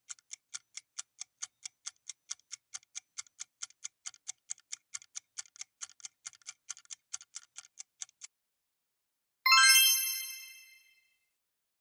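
Quiz countdown-timer sound effect: a clock ticking about four times a second, stopping about eight seconds in, then a single bright chime that rings out and fades, marking time up and the correct answer being revealed.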